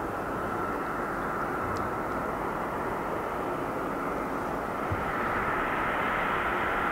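Boeing 747-400F's four GE CF6 turbofan engines running as the jet moves on the runway: a steady rushing with a high whine, growing louder about five seconds in.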